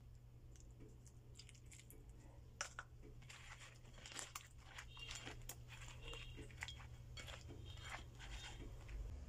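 A hand rubbing and squeezing wet, salted eggplant slices in a plastic bowl: a faint run of short crackles and squeaks that starts a few seconds in, over a steady low hum.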